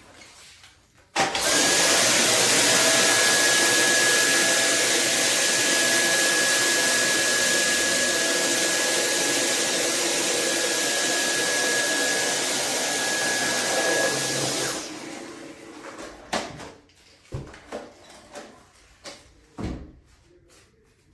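Dyson vacuum cleaner running on its maximum setting with a steady high whine, switched on about a second in and off about fifteen seconds in. A few knocks and clicks follow.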